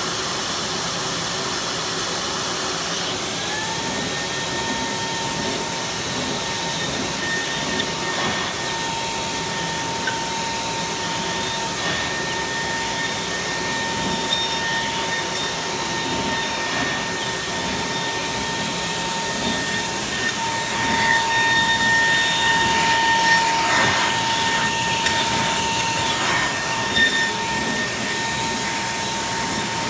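Esko Kongsberg XP cutting table's milling spindle whining at high speed as it routes lettering into 1-inch Gator foam board. The high, steady whine rises into pitch about three seconds in, over a constant rushing machine noise.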